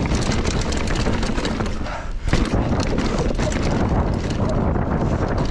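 Mountain bike descending a dirt forest trail at speed: wind buffeting the camera microphone over the tyres on dirt and the bike's rattling and clattering over bumps. About two seconds in the noise dips briefly, then comes a sharp knock.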